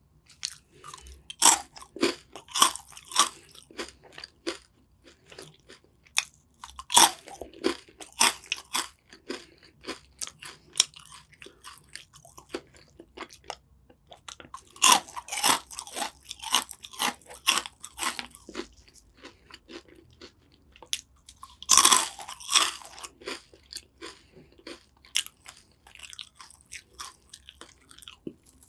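Biting into and chewing crunchy snack sticks: four bouts of loud crisp crunching, each starting with a bite and trailing off into quieter, sparser chewing crunches.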